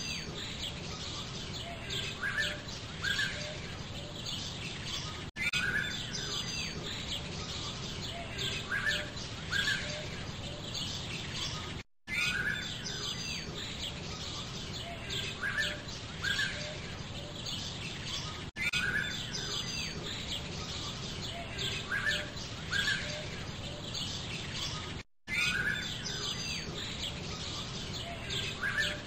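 Birdsong ambience track: small birds chirping, a stretch of about six and a half seconds looped, with a brief drop-out each time it restarts.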